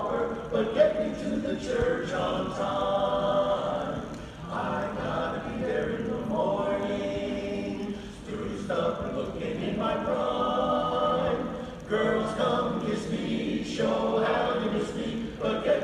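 Men's a cappella chorus singing together, phrase after phrase, with short breaths between phrases about every four seconds.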